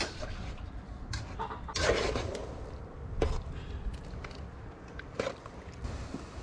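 Domestic chickens clucking, with a louder call about two seconds in and a couple of short ones later.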